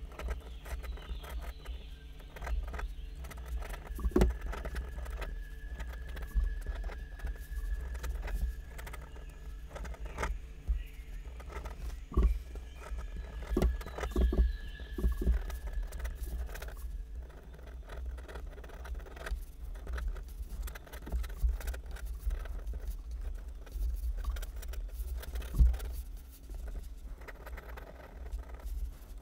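Pen nib scratching and tapping on paper in quick, uneven strokes as an ink sketch is drawn, with a few sharper taps. A low steady hum runs underneath.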